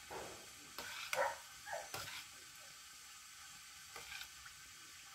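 A spoon stirring a steel pot of okroshka, the chopped vegetables swishing in the liquid, with a few short clinks and scrapes against the pot in the first two seconds and one more about four seconds in.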